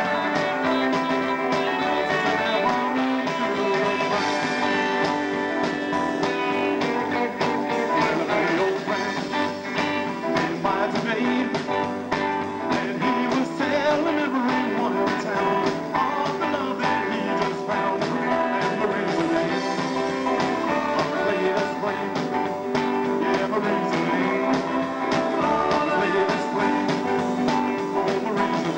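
Live rock and roll band playing: electric guitar and upright double bass over a steady beat, with some singing.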